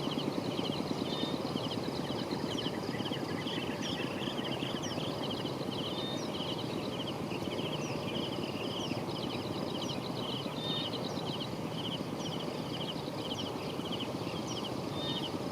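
A steady low rumble with a fast pulse, like a small motor running, under a continuous chorus of short pulsed trills repeating about twice a second and brief high chirps from calling animals.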